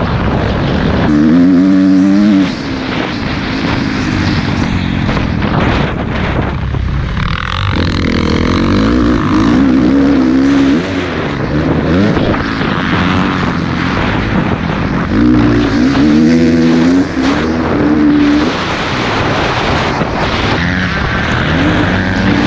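Motocross dirt bike engine ridden hard around a track. Its pitch climbs in several runs as the throttle is opened through the gears, and falls away between them on shifts and off-throttle.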